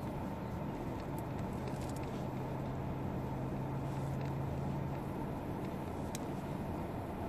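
Car driving slowly over a sandy gravel track, heard from inside the cabin: a steady low engine hum and tyre rumble, with a few faint ticks. The hum is strongest in the middle.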